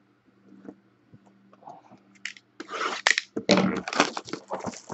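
Crinkling, tearing and scraping of plastic shrink wrap being pulled off a cardboard trading-card box, starting about halfway in as a quick run of crackles.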